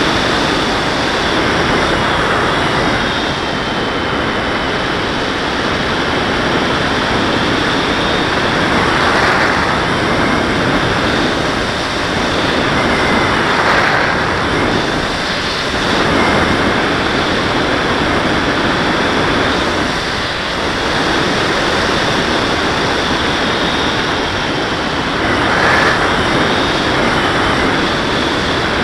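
Onboard audio from an FPV model plane in flight: steady rushing wind over the camera with a thin high motor-and-propeller whine, swelling and easing every few seconds as the plane manoeuvres.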